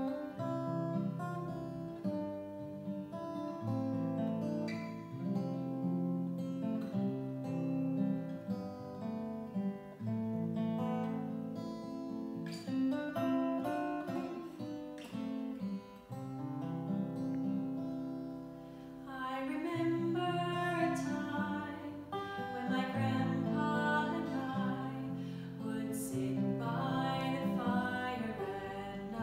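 Acoustic guitar strummed together with a piano accordion holding sustained chords and playing a melody, an old-time folk song. About two-thirds of the way through, the higher melody notes grow brighter and fuller.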